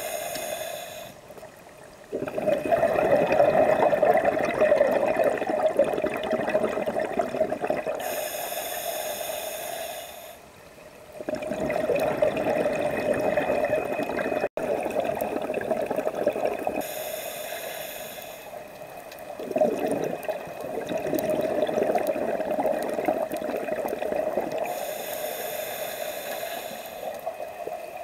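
Scuba diver breathing underwater through a regulator: a short hissing inhale through the demand valve, then several seconds of bubbling exhaust from each exhale. The cycle repeats about four times.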